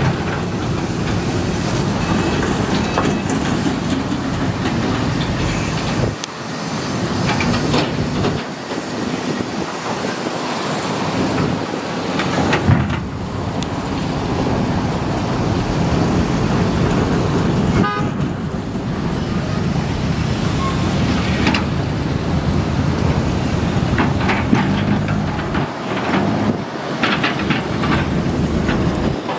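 Matador ME210LC-1 excavator's diesel engine running steadily under load while its bucket digs and scrapes soil, with occasional knocks.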